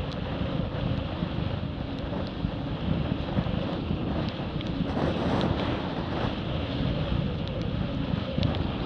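Wind buffeting the camera's microphone and water rushing along the hulls of a Hobie 20 catamaran sailing at about 15 knots, a steady rushing noise with a few small sharp ticks.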